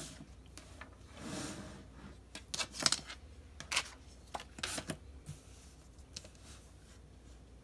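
Paper and a wooden ruler being handled and set down on a hard tabletop: a soft rustle about a second in, then a string of light taps and clicks.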